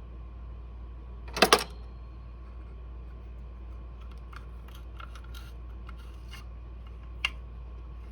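Small hard clicks and taps of tools and metal parts on a disassembled semi-auto shotgun as a pin is worked out of the receiver: a loud double click about a second and a half in, then a scatter of lighter ticks.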